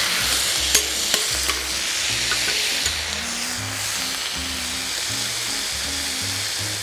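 Food frying in oil in a pan, a steady sizzle, with a few sharp clicks about a second in. A low background music line runs underneath.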